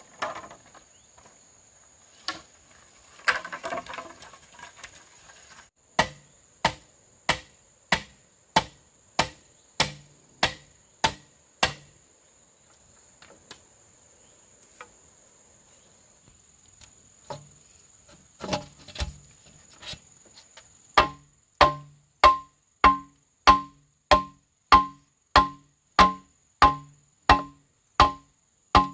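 Hollow knocks of something hard striking bamboo, evenly spaced at about one and a half a second, in two runs with a pause between. A steady high insect drone sounds behind them.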